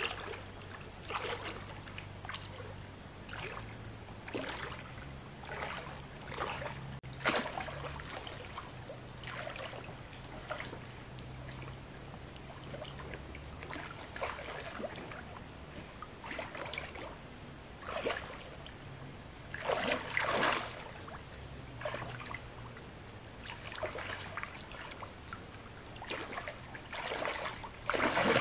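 Water splashing and sloshing in irregular splashes about once a second or two, over a steady trickle; the loudest splashes come about two-thirds of the way through and again near the end.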